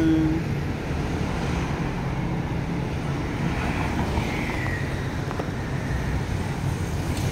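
City street traffic: cars and a motor scooter passing, a steady low rumble. A faint high whine drifts slightly downward about four seconds in.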